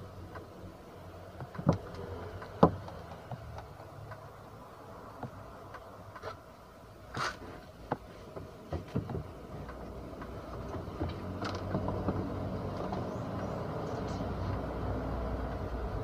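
Sharp knocks and clicks of hands handling parts and wiring inside a washing machine's lower housing, around the spin-dryer motor. The two loudest knocks come about two and three seconds in, and a low steady hum grows in the second half.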